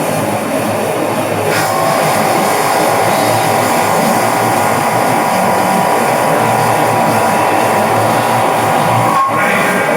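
Fadal CNC mill roughing out a part: steady machining noise, with a sustained whine that sets in about one and a half seconds in.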